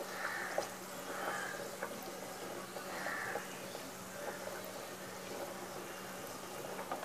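Oil sizzling steadily as chana dal vadas shallow-fry in a pan, with a few light clicks of a metal spoon against the pan. A crow caws a few times in the background.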